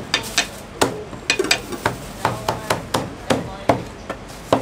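Steel cleaver chopping roast meat on a thick round wooden chopping block: quick, uneven chops, about three or four a second, each a sharp knock on the wood.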